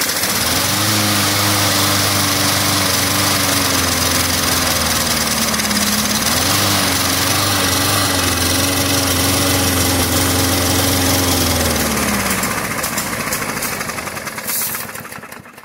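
Push mower's single-cylinder engine running on brake parts cleaner sprayed into its carburetor. Its speed sags about halfway, picks back up and wavers, then it dies and winds down. It won't stay running, a fault the owner puts down to carburetor jets clogged from sitting.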